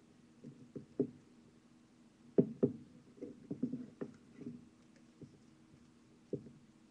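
Duct tape wallet handled on a desk: irregular knocks and taps as it is opened, closed and set against the desktop, the loudest two close together about two and a half seconds in.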